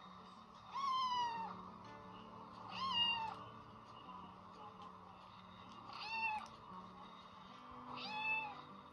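Kitten meowing four times, each call falling in pitch, over soft background music, played through a laptop's speaker.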